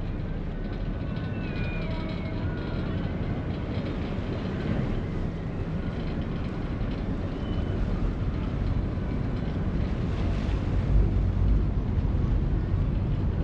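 Harbour ferry under way, heard from the open deck: a steady low rumble of engine and water, with wind buffeting the microphone, strongest in a gust about eleven seconds in.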